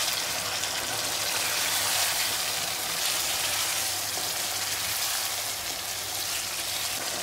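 Chicken karahi masala with freshly added yogurt sizzling steadily in a non-stick pan while a wooden spatula stirs it.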